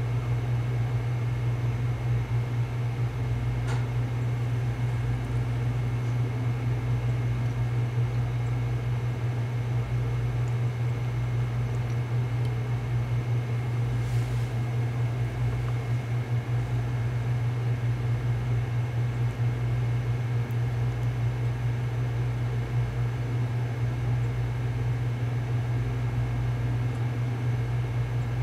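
Steady low mechanical hum with a fan-like hiss, unchanging, with a couple of faint ticks.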